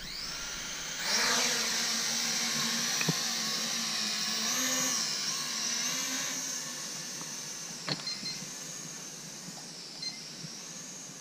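Asbww GPS quadcopter's electric motors and propellers spinning up with a rising whine, then a steady high buzzing whine as the drone lifts off and climbs. The pitch wavers briefly midway, and the sound slowly grows fainter as the drone rises away.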